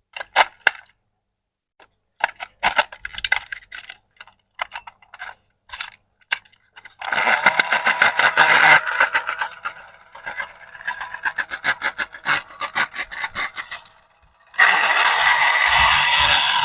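Small hard plastic toy parts and packaging being handled: a run of separate clicks and taps, then two longer stretches of dense crackling and scraping, the second starting about fourteen and a half seconds in.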